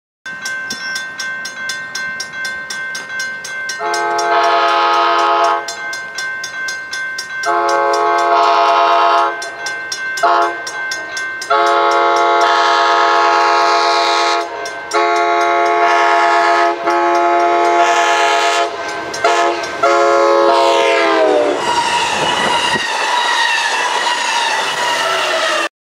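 Amtrak California passenger locomotive sounding its multi-note air horn in the grade-crossing pattern: two long blasts, a short one, then a long blast that drops in pitch as the train passes close by. A bell rings rapidly under the horn, and wheel and rail clatter follows the passing.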